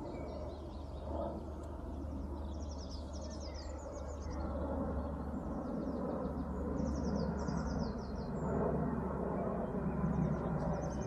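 A small songbird singing short, rapid trilled phrases every few seconds, over a steady low background rumble.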